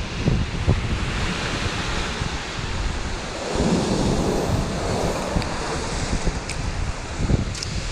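Sea surf washing against a rocky shore, with wind buffeting the microphone; a wave surges up about halfway through.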